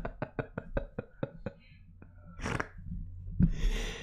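Very fast, evenly spaced drum hits, about eight a second, from a heavy metal track, stopping abruptly about a second and a half in. After that comes a short hissing burst and then a thump with a breathy hiss near the end.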